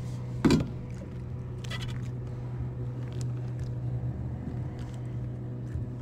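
Handling noise as a bluegill is unhooked by hand in a kayak: one sharp knock about half a second in, then a short rustle and a few light clicks. A steady low hum runs underneath.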